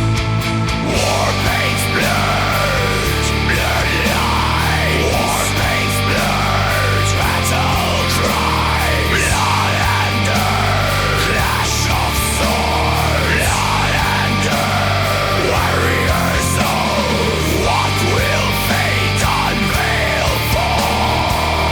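Instrumental melodic death metal passage with no vocals. A lead guitar plays fast melodic runs that sweep up and down over distorted rhythm guitars, bass and drums.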